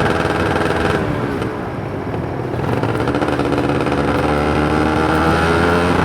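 Kawasaki Ninja 150 RR's two-stroke single-cylinder engine under way: revving high, the throttle closed about a second in so the pitch falls, then opened again about three seconds in with the revs climbing steadily.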